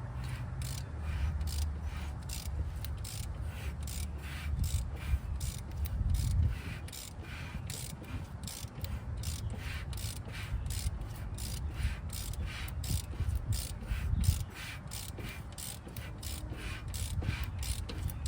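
Hand ratchet on the crankshaft's harmonic balancer bolt clicking steadily, about two or three clicks a second, as the engine is turned over by hand through a few revolutions to check the new timing chain turns without binding. A low rumble sits underneath.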